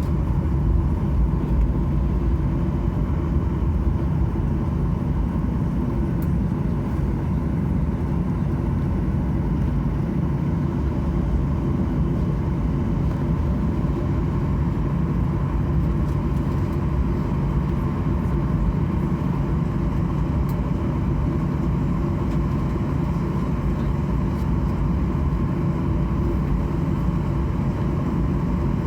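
Boeing 737-800 jet engines (CFM56-7B) running at low, steady power while taxiing, heard as a constant deep rumble with a steady hum, from inside the cabin.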